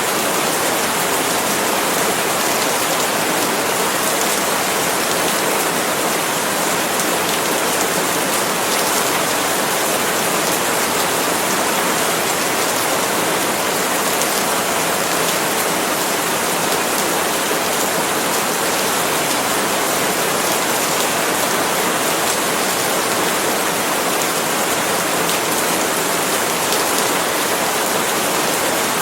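Steady rain falling on palm leaves, an even hiss that holds without a break.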